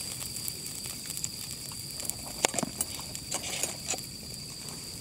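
Crickets trilling steadily, with a handful of sharp clicks and pops about halfway through.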